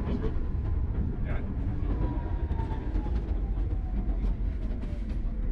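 Tram running on its rails: a steady low rumble with a faint tone that slowly falls in pitch, and a few light clicks.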